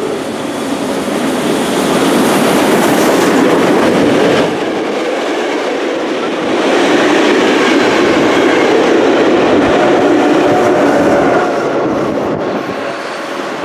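Class 52 (BR 52) steam locomotive and its train of passenger coaches passing close by: a loud, steady rolling noise of wheels on the rails, easing off after about eleven seconds as the last coaches go by.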